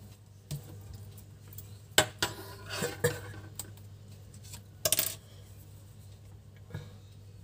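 Scattered light metallic clicks and clinks as hands work yarn with a metal crochet hook, with a quick cluster of clicks about five seconds in. A steady low hum runs underneath.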